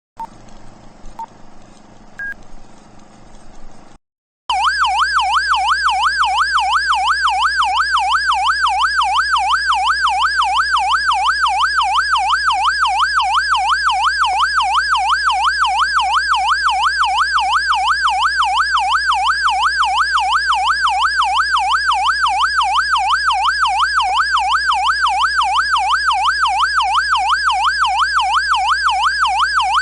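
Whelen Engineering police siren on its warble setting: a loud electronic wail sweeping rapidly up and down, about three times a second, without a break. It starts suddenly about four seconds in, after a short gap. Before it come a few quieter clicks and short beeps.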